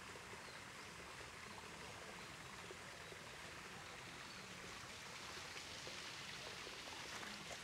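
Faint, steady rush of running water from a spring.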